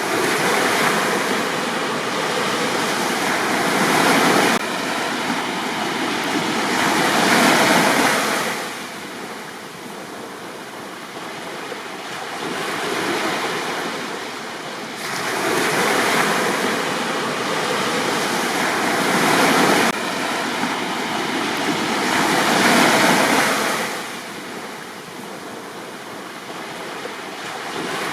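Sea surf breaking and washing up a beach, swelling louder and easing back every several seconds, with a quieter lull in the middle.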